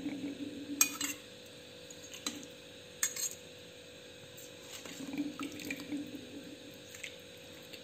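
A ladle scooping chicken curry out of a wok and pouring it into a small metal bowl: gravy sloshing and dripping, with a few sharp clinks of the ladle on metal, the loudest about a second in and about three seconds in.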